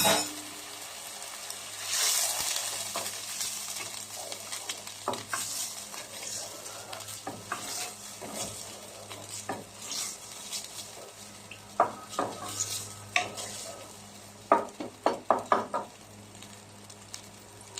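Sweet-and-sour sauce of pineapple juice, vinegar and ketchup sizzling in a hot pan over sautéed onion and garlic while it is stirred. A utensil scrapes and clinks against the pan, several times in the second half.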